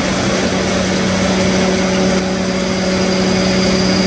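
CNC vertical milling machine running, its end mill cutting a metal block for a brake-caliper bracket. It gives a steady hum with a constant cutting hiss.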